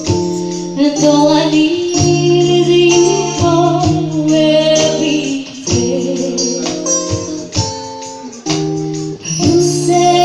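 A small live band playing a song: a woman sings the melody into a microphone over guitar chords and bongos, with light percussion hits keeping the beat.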